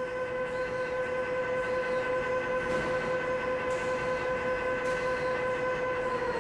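A steady, even drone with a hiss behind it, starting to slide down in pitch right at the end.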